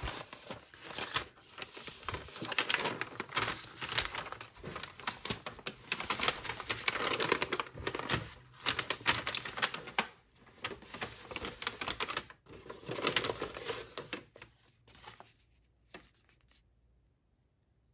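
Brown kraft packing paper being pulled out, unfolded and crumpled by hand: a dense, irregular crackling rustle that thins out and dies away in the last few seconds.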